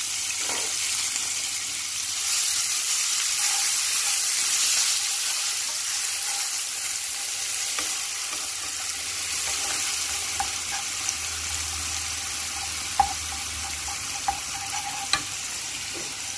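Chopped onions sizzling steadily in hot oil in a frying pan as they are stirred with a wooden spoon, with a few sharp clicks near the end.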